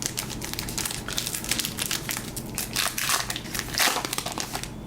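Foil trading-card pack wrapper crinkling as it is torn open and crumpled in the hands: a dense, irregular crackle, with a louder crackle near the end.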